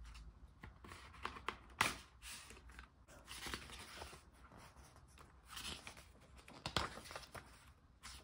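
Paper and card of a K-pop album being handled: rustling and crinkling with a few sharp clicks and taps, the loudest near two seconds in and again near seven seconds.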